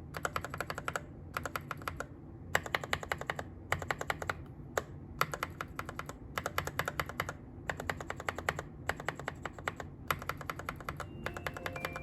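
Rapid plastic clicking from mechanical keyboard switches, in about ten short fast runs with brief pauses between them.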